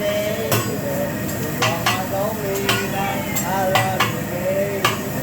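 Metal spatulas striking and scraping on a hibachi flat-top griddle: about half a dozen sharp metal clacks at irregular intervals over a low cooking sizzle.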